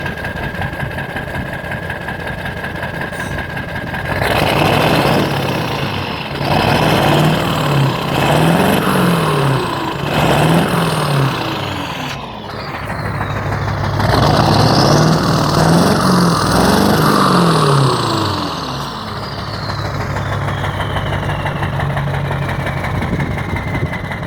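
Ford 7.3 Powerstroke turbo-diesel V8 sounding through its exhaust stack: it idles, is revved in several short blips, then held at a longer rev before dropping back to idle, nice and loud. Near the end a high whistle falls slowly as the turbo spools down.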